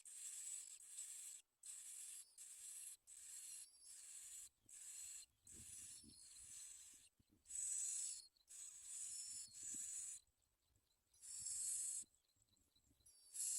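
Bar-winged prinia nestlings begging: a run of high-pitched, rasping bursts, each up to about a second long with short gaps, growing loudest about eight and twelve seconds in.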